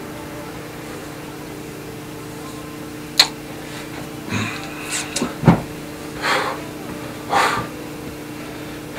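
A steady low electrical hum in a small room. About three seconds in comes a sharp click, then a few short noisy bursts and a dull thump.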